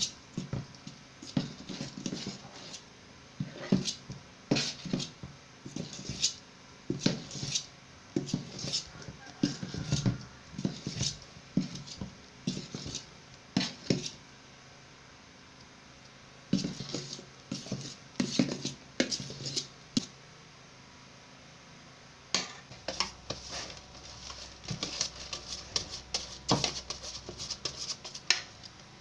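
Metal spoon scraping and knocking against a stainless steel mixing bowl while folding flour into thick cake batter, in irregular strokes with a couple of short pauses.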